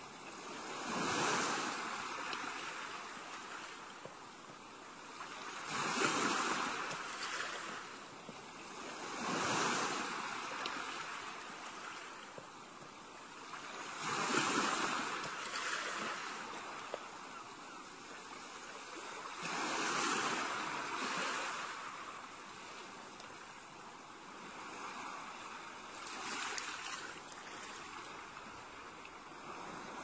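Gentle ocean waves breaking and washing up onto a beach, six in turn. Each comes in as a rush of surf that dies back to a soft hiss before the next.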